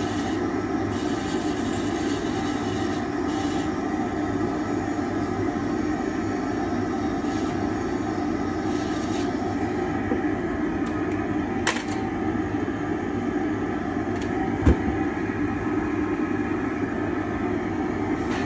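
Dental lab bench dust extractor running with a steady drone of several fixed tones. There is a sharp click about twelve seconds in and a dull knock about three seconds later.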